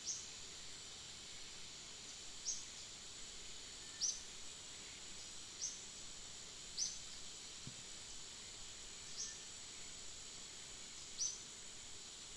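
Outdoor forest ambience: a steady high insect drone, with a short, high chirp falling in pitch repeated seven times, every one to two and a half seconds.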